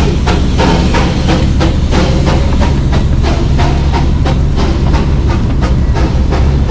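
Coal-fired steam locomotive of the Darjeeling toy train chuffing as it pulls out of the station: a fast, even beat of about three to four exhaust puffs a second, with hissing steam over a low rumble.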